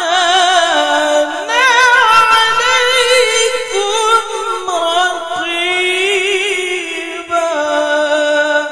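A man's high, melodious voice reciting the Qur'an in the ornamented tilawah style. It runs in long melismatic phrases with rapid wavering ornaments and settles into a steady held note near the end.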